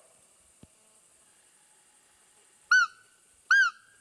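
Two sharp, loud squeaks on a roe deer call, about a second apart near the end, each a short bent peep. The call imitates a roe doe's squeak to lure a buck during the rut.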